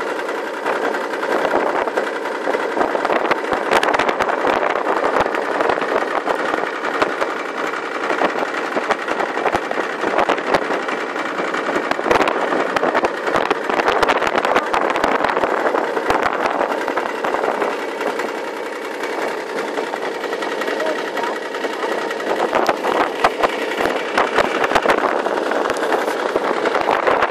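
Snowmachine engine running steadily, mixed with a constant hiss and crackle.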